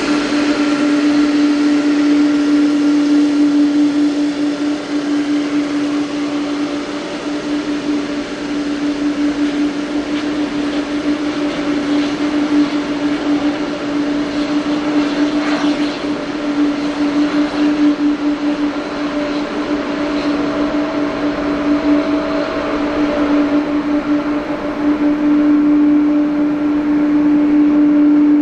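Pratt & Whitney PW4000-series turbofans of an All Nippon Airways Boeing 777-300 running at taxi power. The sound is a steady, strong low whine with a fainter higher tone over a rushing hiss, growing a little louder near the end.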